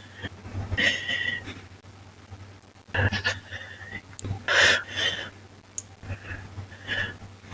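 Audible breathing: irregular breaths, about five of them, the loudest about four and a half seconds in, over a steady low hum.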